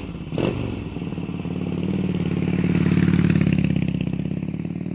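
Harley-Davidson V-twin motorcycle engine running with a fast, even throb, a sharp clack about half a second in, swelling in loudness to around three seconds in and then easing off.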